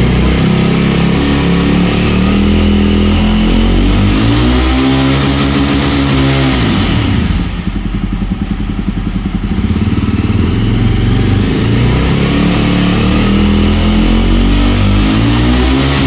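Jawa 42 Bobber's single-cylinder engine revved hard through its dual exhaust: held at high revs, dropping back about seven seconds in, then revved up and held again before falling away near the end. Quite loud, reaching about 103 dB on a meter held at the exhaust.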